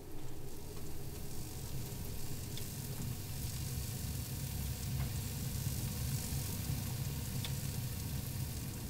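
Food sizzling as it cooks: a steady hiss over a low steady hum, with a few faint pops.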